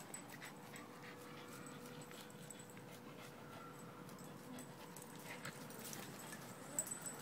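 Two small dogs playing on wood mulch: faint panting and scuffling, with a few sharp clicks and knocks near the end as they wrestle.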